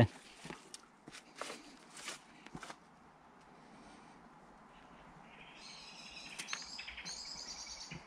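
A songbird singing a fast, high twittering phrase of repeated notes, starting about halfway through and growing louder toward the end, over a faint steady outdoor background. A few soft rustles or steps come in the first few seconds.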